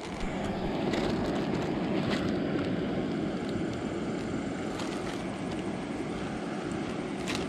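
Steady low rushing noise, with a few faint crackles of a plastic bag being handled.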